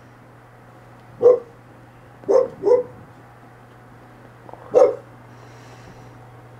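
Dog barking four short barks: one, a quick pair about a second later, and a last one near the end.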